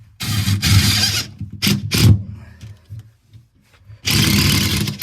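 Power drill driving screws through a toilet pan's fixing holes into the floor, in two runs of about a second each, with a few short knocks between them.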